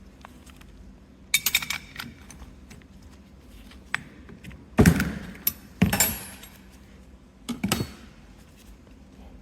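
Metal tools and parts clinking and knocking in four short clusters, the loudest about halfway through with a dull thud under the clinks.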